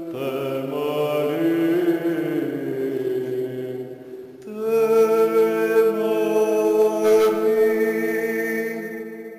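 Byzantine chant: a male chanter sings a melismatic line over a second male voice holding the ison drone. After a short break about four seconds in, both hold a long closing note that fades away near the end.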